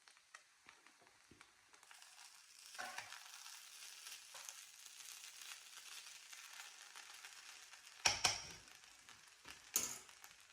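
Food frying in hot oil: a steady sizzle that builds about two seconds in. Two sharp knocks come near the end.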